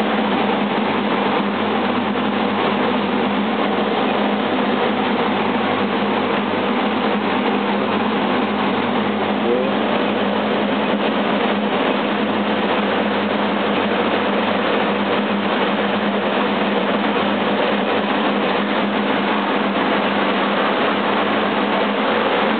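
Corn dryer machinery running steadily: a loud, even mechanical whir with a constant hum underneath.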